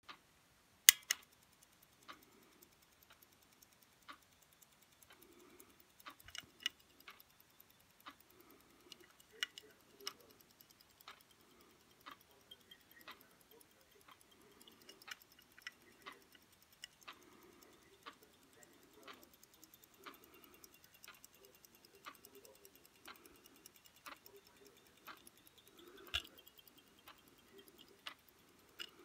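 Hanhart mechanical stopwatch ticking steadily, with a sharp double click about a second in and another loud click near the end, over soft handling rustle against the steel case.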